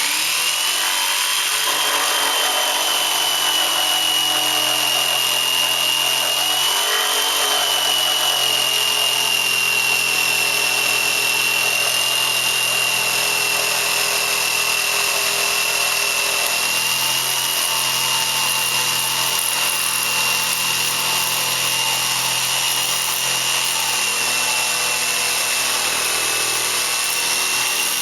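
RIDGID R3100 compact orbital jigsaw running with its orbital action on, its blade ripping along a 2x12 Douglas fir board. A steady high motor whine over the rasp of the blade, unbroken throughout.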